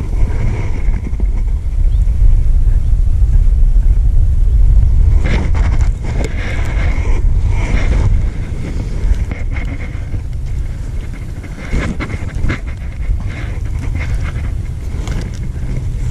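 Wind rumbling on the camera microphone, strongest in the first half, with scattered clicks and rattles from about five seconds in.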